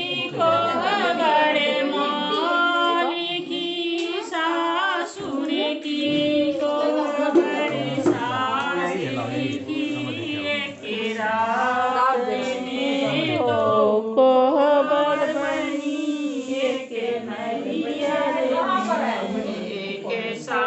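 A group of voices singing a song together, with long, gliding melodic lines.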